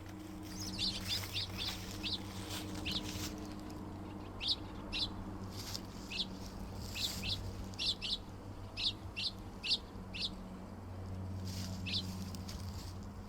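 Short high chirps from a small bird, repeated at irregular intervals, over a low steady hum.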